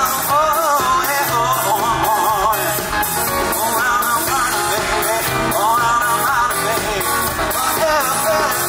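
A live funk band playing an upbeat number, with drums, bass and electric guitar under a wavering lead melody that sounds like a voice singing.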